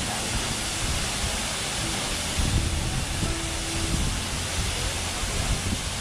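Steady rushing roar of a waterfall, with wind buffeting the microphone as a gusty low rumble.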